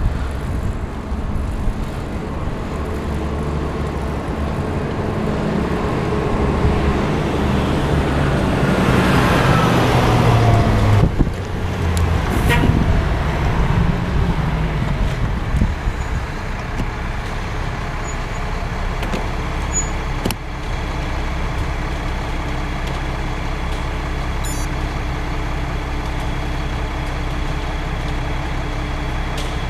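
A cement mixer truck's engine grows louder as the truck comes up alongside and passes close to a bicycle. Its engine note slides down in pitch as it goes by, about ten seconds in. It then runs steadily just ahead.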